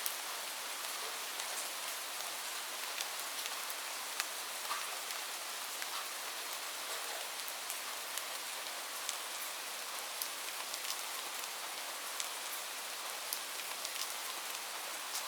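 Light rain falling steadily: an even hiss with many individual drops ticking sharply on a surface.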